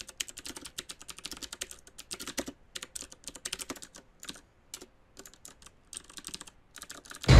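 Computer keyboard typing: quick, irregular key clicks with a few short pauses. Loud music cuts in at the very end.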